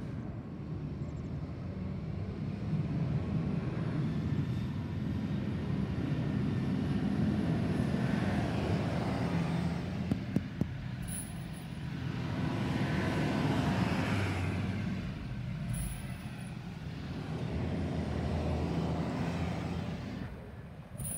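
School buses driving past one after another, their engine noise swelling and fading about three times as each one goes by. Two sharp clicks sound a little after halfway.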